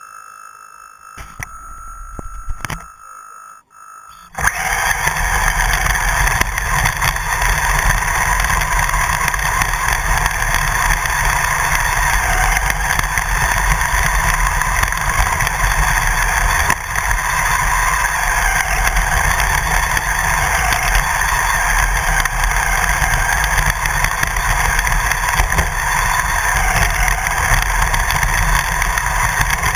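Onboard sound of a radio-controlled car driving over grass: its motor and drivetrain running hard with a continuous rumble and rattle from the rough ground. It sets off about four seconds in, after a quiet stretch with a few knocks.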